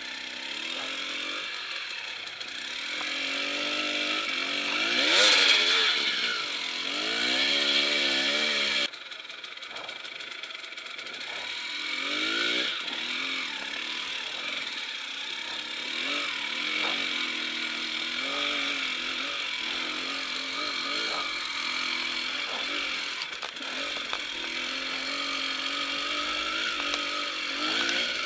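Enduro motorcycle engine revving, its pitch rising and falling repeatedly with the throttle. It is loudest about five seconds in, drops suddenly about nine seconds in, then keeps running at changing revs.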